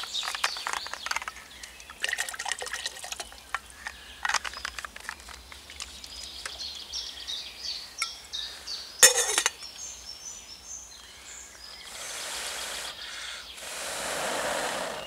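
Water poured from a canteen into a steel cooking pot, with clicks and knocks as the canteen and its cap are handled. A single sharp knock comes about nine seconds in, and a steady rushing hiss fills the last three seconds.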